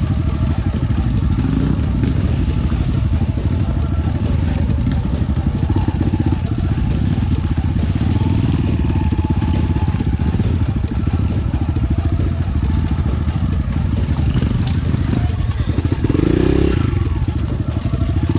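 Enduro dirt bike engine running steadily at low revs while riding, with a brief surge about three-quarters of the way through.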